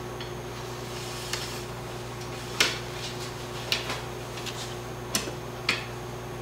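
Cleaning rod being worked through a rifle bore, giving several sharp clicks and taps of the rod against the gun, the loudest about two and a half seconds in, over a steady background hum.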